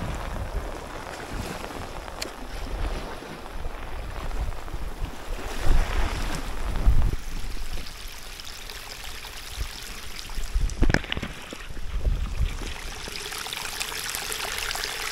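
Heavy rain falling on water and wet ground, with gusts of wind rumbling on the microphone, and a single sharp knock about eleven seconds in.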